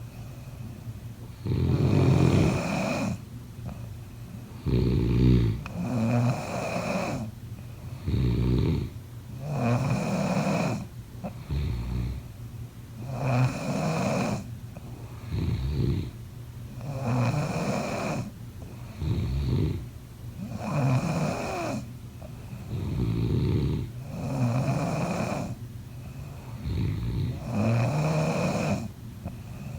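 A person snoring in a slow, regular rhythm, with a rumbling snore every couple of seconds and quieter breathing in between.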